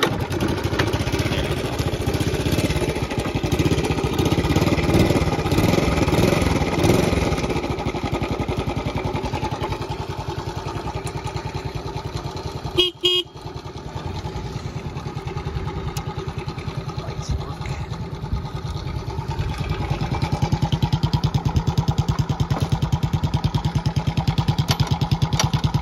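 A 1972 Honda CT70's small single-cylinder four-stroke engine idling with a steady, even beat. It breaks off briefly near the middle and runs a little louder toward the end.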